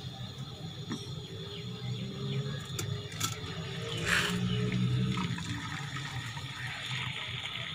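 Melted jaggery syrup being poured through a cloth strainer, a splashing pour that swells to its loudest about four to five seconds in, with a few small clicks, over a steady low hum.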